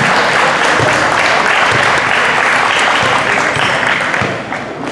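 Spectators in a gymnasium applauding, a dense steady clapping that dies away about four seconds in.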